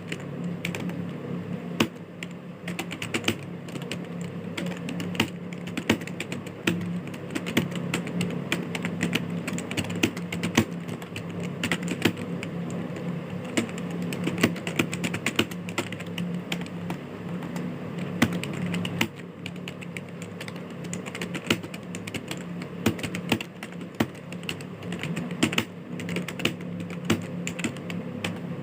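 Fast, continuous typing on a computer keyboard: a dense, unbroken stream of key clicks with a few louder strokes, over a steady low hum.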